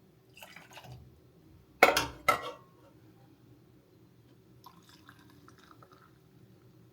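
Household objects being handled in a kitchen: a soft rustle, then two sharp knocks half a second apart about two seconds in, and faint light clattering near the end.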